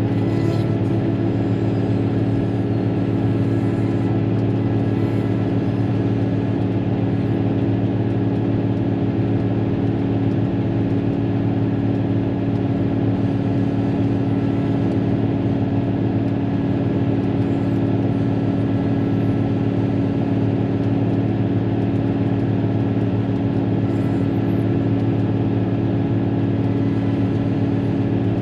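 Caterpillar motor grader's diesel engine running steadily as the grader works along a dirt road, heard from inside the cab: a constant drone with a strong low hum.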